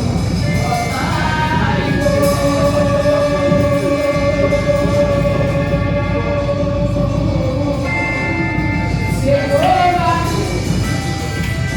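Gospel worship song: voices singing over a band with a steady low accompaniment, one long note held for several seconds before a new phrase begins near the end.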